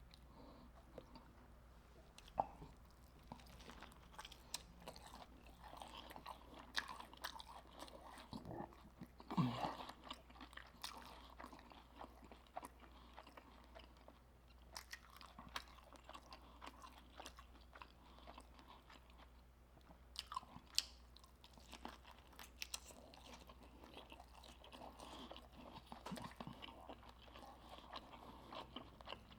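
Close-miked chewing of crispy fried seafood, with scattered crunchy bites and crackles of the fried coating and wet mouth sounds in between. The loudest crunches come about a third of the way in and again past two thirds.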